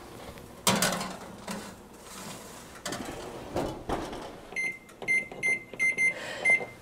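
A metal baking sheet clatters against the oven rack about a second in, followed by a few lighter knocks. In the second half, an appliance's electronic keypad gives a run of short high beeps ending in a longer beep, as when a cooking time is being set.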